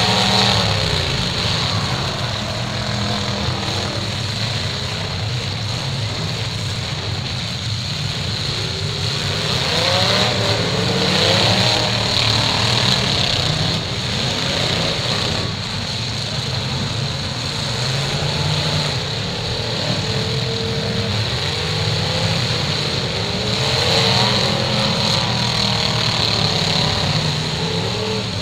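Engines of several demolition-derby cars running and revving over one another. The revving swells about ten seconds in and again near the end.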